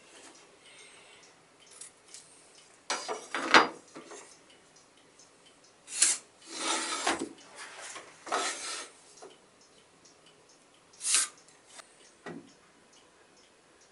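Intermittent handling sounds of cardboard-framed furnace filters being slid, shifted and set down on a wooden frame: short rubbing scrapes and light taps. The loudest comes about three and a half seconds in, with several shorter ones later and quiet between.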